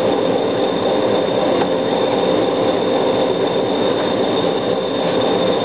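English Electric Class 20 diesel locomotive running under way, its eight-cylinder turbocharged engine giving a steady drone with a constant high whine over it.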